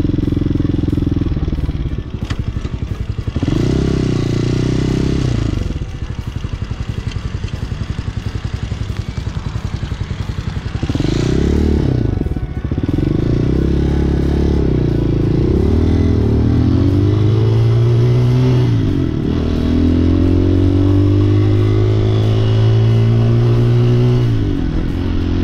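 Xpro Hawk 250 motorcycle's single-cylinder engine, heard from the rider's seat. It eases off and runs low and quieter for several seconds. About halfway through it pulls away, its pitch rising and dropping back with each upshift, then settles into a steady cruise.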